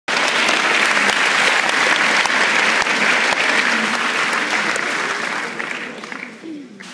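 Audience applauding, a dense clapping that fades away over the last second and a half.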